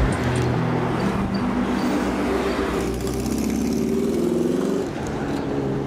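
Street traffic with a classic VW Beetle driving past, its engine climbing steadily in pitch as it accelerates for a couple of seconds before cutting off about five seconds in.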